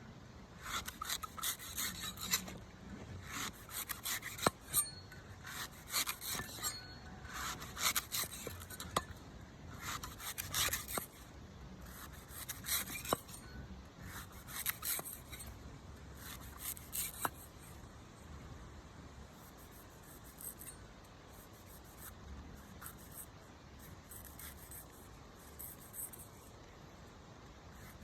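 A coconut being scraped and cut with a blade, in irregular rasping strokes that come thick and fast at first and grow sparser later on, with a few sharp clicks.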